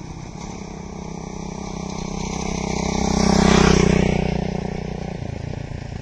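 A motor vehicle's engine passing close by, growing louder to a peak about three and a half seconds in, then fading away.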